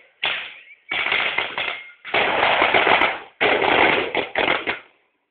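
Strings of firecrackers in a burning devil effigy going off in rapid crackling volleys, four bursts with short gaps, the last stopping about five seconds in.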